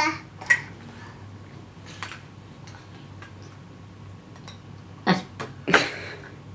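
Spoon clicking and scraping against a yoghurt dish, a few separate clicks, with two louder knocks or scrapes near the end.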